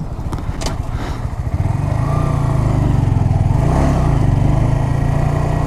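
Honda Grom's 125 cc single-cylinder motorcycle engine running in traffic, getting louder about a second and a half in and then holding steady.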